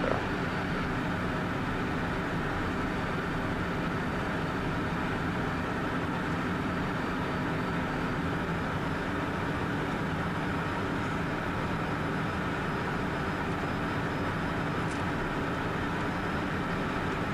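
Steady in-flight cabin noise of a Cessna Citation M2: the two rear-mounted Williams FJ44 turbofans running at a constant setting under the rush of airflow, with a few faint unchanging tones.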